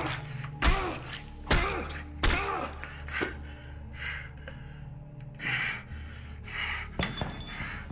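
A person being beaten: about five heavy blows land roughly once a second, each with a grunt. They are followed by three heavy, panting breaths over a low, steady music drone.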